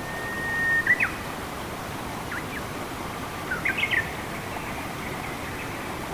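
A bird singing over the steady rush of running water: one long held whistle that swells for about a second and ends in a couple of sharp notes, then short chirps and a quick cluster of notes around the middle.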